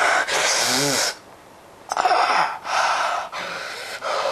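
A person breathing hard in loud, hissy gasps, about four breaths in a row, with a short voiced groan during the first.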